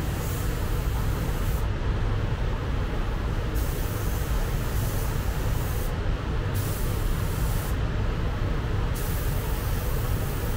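Paint spray gun hissing in spurts of a second or two, cut off and restarted three times as the trigger is released and pulled again, over a steady low rumble.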